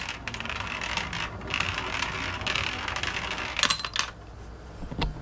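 Gumball rolling down the spiral track of a spiral gumball machine, a steady rolling rattle, ending in a few sharp clicks about three and a half seconds in.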